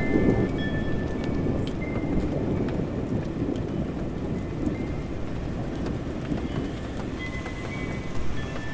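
Steady rain with a low rolling thunder rumble that is loudest at the start and slowly dies away. Scattered sharp ticks of drops can be heard through the rain.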